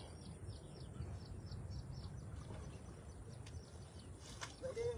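High-pitched chirping, repeating a few times a second, over a steady low outdoor rumble. Near the end, a brief sharp splash as a hooked fish is scooped into a landing net.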